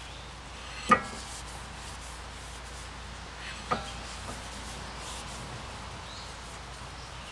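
Paper towel rubbing over a brake rotor as it is wiped down with brake cleaner. Two sharp knocks, the first about a second in and the loudest, with a short ring, and a smaller one near the middle.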